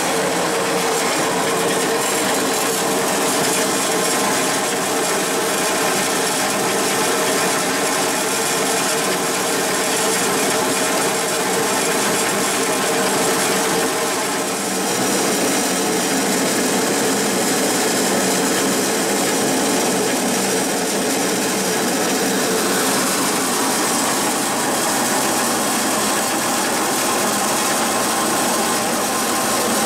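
Remet GX-100 grain crusher (roller mill) running steadily under load, its rollers flattening grain while the crushed grain pours out. The sound changes slightly about halfway through.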